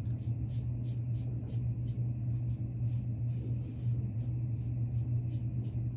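Gillette Rocket double-edge safety razor scraping through lathered stubble in short, quick strokes, about three or four a second. A steady low hum runs underneath.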